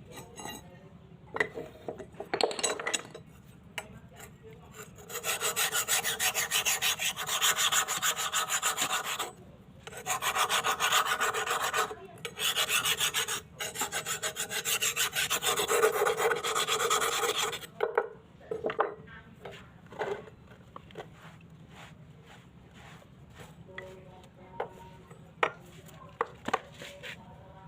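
Fast back-and-forth abrasive strokes on a rusty old knife's steel, scrubbing or filing the rust off, in three long runs with short pauses between them. Scattered clicks and taps come before and after.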